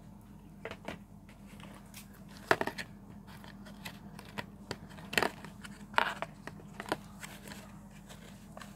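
Sticky glue slime being kneaded and pulled by hand in a plastic bowl: scattered wet clicks and pops, a few of them sharper and louder, from the slime sticking to and coming off the fingers. The slime is still too sticky, not yet fully set by the borax.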